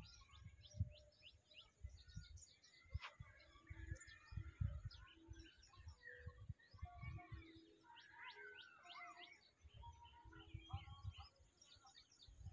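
Faint chorus of small birds chirping and calling, many quick high chirps with some warbling phrases, over irregular low rumbling on the microphone.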